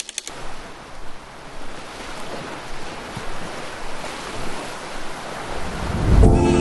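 Sea waves washing onto a beach: a rushing noise that swells and eases. Music comes in near the end.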